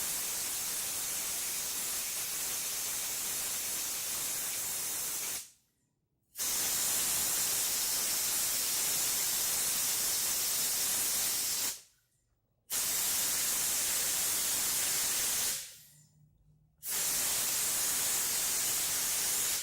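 Compressed-air blowgun hissing in four long blasts with short pauses between them, blowing brake-cleaner residue out of a 2011 Toyota Corolla's ignition coil connectors.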